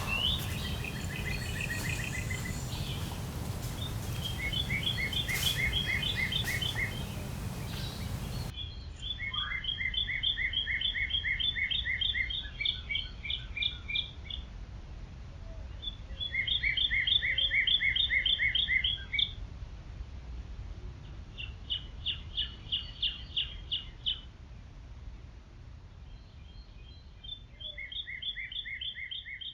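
Songbird singing: rapid trilled phrases of quick, evenly spaced notes, each lasting one to three seconds, repeated every few seconds. A low background rumble drops away about eight seconds in.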